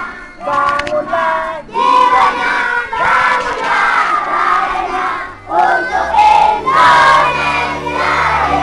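A group of children chanting together in unison, loud short phrases with brief breaks between them.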